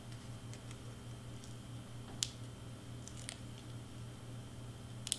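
A few faint, light clicks and taps from cardstock pieces being handled and set down, the sharpest about two seconds in, over a steady low hum.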